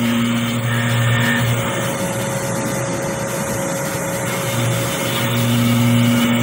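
Small DIY CNC milling machine cutting a pocket into an aluminium block: the spindle runs with a steady whine over a constant noise of the end mill cutting, while a lower hum fades out about a second and a half in and returns near the end as the tool moves along its path.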